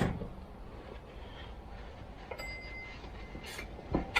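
Quiet workshop room tone with a few light clicks and knocks as chainsaw parts are handled, and a brief faint high-pitched beep about two and a half seconds in.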